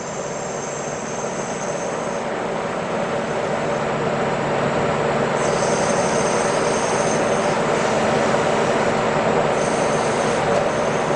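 CNC lathe running a turning cycle on bar stock: steady machine running from the spinning spindle, gradually getting louder, with a higher hiss that comes and goes three times.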